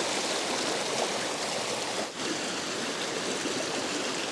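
Rain-swollen creek rushing in flood, a steady loud rush of water with a brief dip about halfway through.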